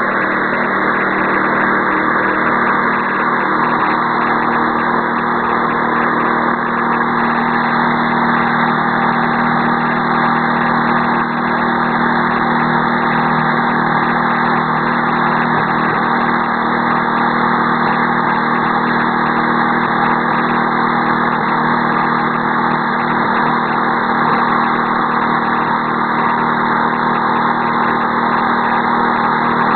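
The 6.5 hp engine of a walk-behind snow sweeper running steadily at idle, with no change in speed.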